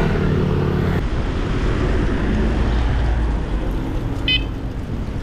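A motorcycle engine running close alongside a moving bicycle, cut off abruptly about a second in. Then steady wind and road noise from the moving bicycle, with one short high-pitched tone about four seconds in.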